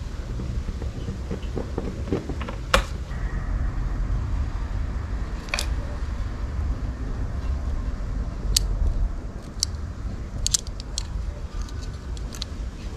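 Steady low rumble of wind on the microphone, with scattered sharp clicks of metal kitchen tongs: one strong click about three seconds in, then a cluster of lighter ones in the last third.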